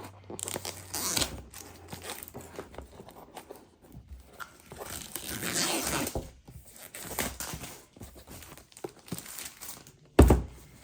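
Cardboard retail box of a DJI Mini 3 being opened by hand: tearing of the seal, crinkling packaging and small handling clicks and knocks, with one loud thump near the end.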